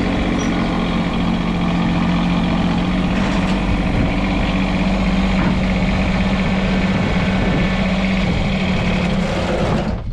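Kubota BX compact tractor's three-cylinder diesel engine running at a steady speed.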